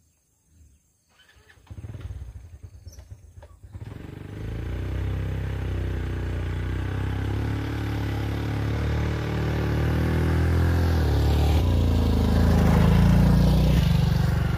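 Small motorbike engine starting about two seconds in, then running steadily and getting louder as the bike rides closer.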